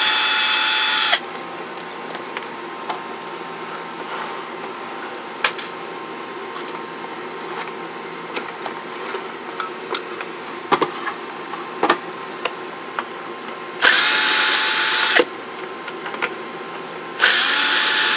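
Small electric screwdriver whirring in three short bursts of about a second and a half each: at the start, about 14 seconds in, and near the end. It is backing screws out of a CB radio's metal cover. Between the bursts come light clicks and taps of handling over a steady faint hum.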